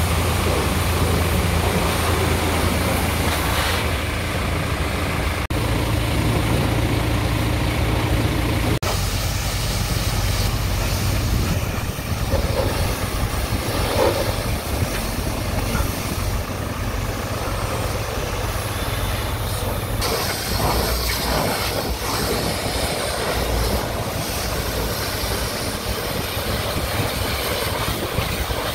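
Pressure-washer lance hissing as it blasts water over a New Holland T5060 tractor, over a steady low mechanical hum. The mix shifts abruptly a few times.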